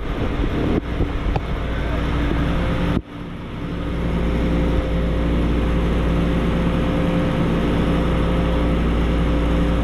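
ANCA FX CNC tool grinding machine running, a steady mechanical hum with a few held tones and a low rumble. A few light clicks come in the first second and a half, and the sound dips sharply about three seconds in, then comes back up.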